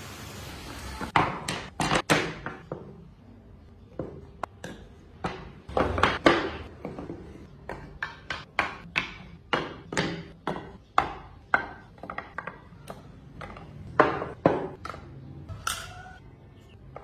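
Wooden parts of a toy 4x4 car clacking and knocking against each other and the tabletop as they are fitted and set down. The sharp knocks come irregularly, about one or two a second.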